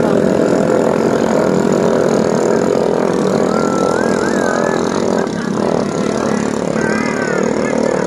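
Small ketinting longtail boat engines of the 13–18 hp class running at race speed: a loud, steady engine drone, with a thin wavering whine rising and falling around the middle and again near the end.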